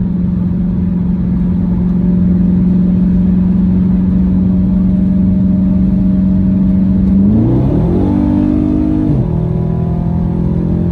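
A Dodge Charger's 392 (6.4-litre HEMI) V8 droning steadily inside the cabin at cruising speed. About seven seconds in, the pitch rises quickly as the car accelerates, holds for a moment, then falls back about two seconds later.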